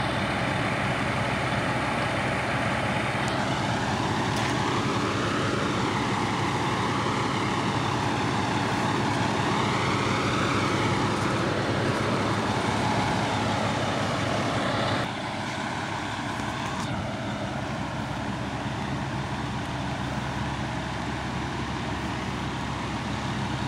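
Steady low hum of idling fire engines' diesel engines, a constant drone that drops somewhat in level about fifteen seconds in.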